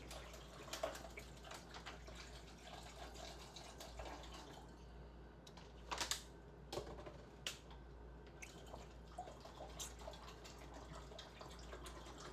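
Faint kitchen handling sounds: scattered light clicks and knocks of things being set down and moved, with a little water dripping and trickling. The loudest knocks come about six and seven and a half seconds in.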